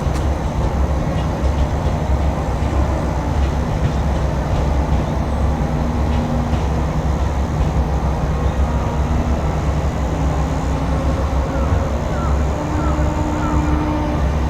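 JR Kyushu 817 series electric multiple units running past: a steady, loud rumble of wheels on rail, with faint motor tones over it and a few short rising whines near the end.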